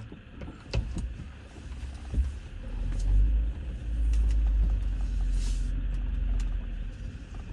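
Low road rumble heard from inside a vehicle's cabin as it rolls slowly along a gravel road, loudest through the middle, with scattered clicks and knocks and a short hiss about five and a half seconds in.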